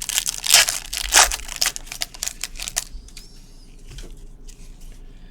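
Foil wrapper of a trading-card pack being torn open and crinkled, a loud dense crackle for about three seconds, followed by lighter rustling and clicks as the cards are handled.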